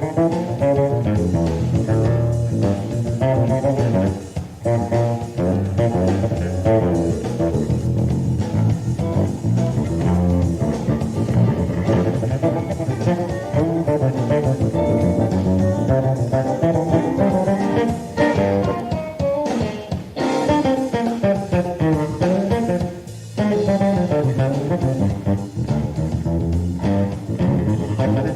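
Electric bass guitar played solo in a live performance: fast melodic runs and chords in the low and middle register, with brief pauses about four seconds in and again near the end.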